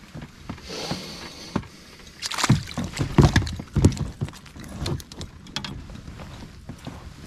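A small perch splashing at the surface as it is lifted out and swung onto an inflatable boat, with a quick run of irregular thumps and knocks against the rubber hull in the middle, then a few lighter taps.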